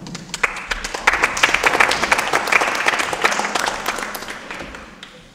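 Audience applauding: the clapping swells within the first second, holds, then dies away near the end.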